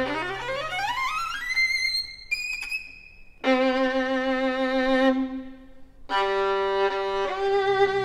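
Solo violin playing a passage with little or no accompaniment: a fast run climbs to a high held note, then a low note is held with vibrato, and a new phrase begins about six seconds in. The orchestra's low strings come back in near the end.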